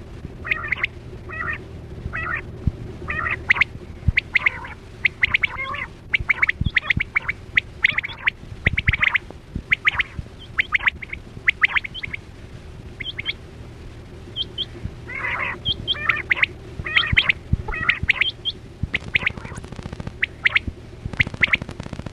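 Quail calling: a rapid run of short, sharp, repeated call notes, in quick groups with brief gaps, over a steady low hum.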